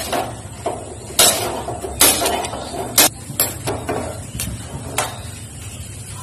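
A string of sharp clicks and light metal clinks, about ten over five seconds, thinning out near the end: a gas stove burner being lit with a hand-held spark lighter and a small steel pan being set and shifted on the burner grate.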